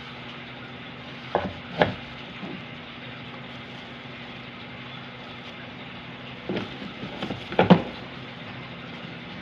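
Plastic parts of an electric meat grinder being handled: its lid and bowl in plastic wrapping knock and rustle, with a pair of knocks about two seconds in and a cluster near the end as the lid is set on the bowl, over a steady background hiss and hum.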